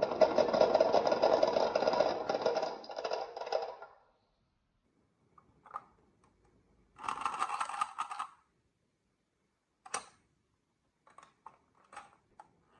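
Marbles rolling and rattling along a marble run track for about four seconds, then a shorter burst of rolling a few seconds later, and a few single clicks of marbles knocking near the end.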